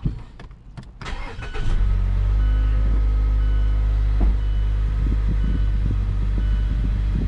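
A 2013 Mazda CX-5's four-cylinder engine is started: a brief crank catches about a second and a half in, then the engine settles into a steady idle. This is its first start on freshly gapped spark plugs, fitted to cure a cylinder 2 misfire.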